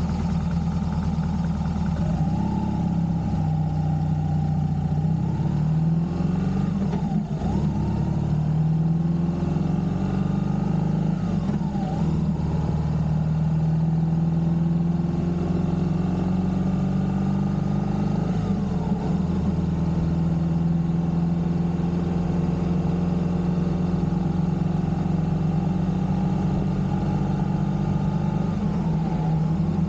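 Motorcycle engine running at road speed, its pitch dropping and climbing again several times as the speed changes.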